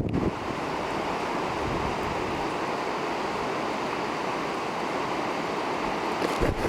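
Steady rush of Waddell Creek running in full flood after heavy rain, with brief low buffeting on the microphone near the start and near the end.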